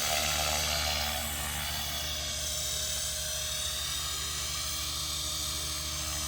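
Blade Fusion 480 electric RC helicopter in flight: a steady whine from its brushless motor and drive gears over the hum of the rotor blades, the pitch dipping a little and rising again partway through.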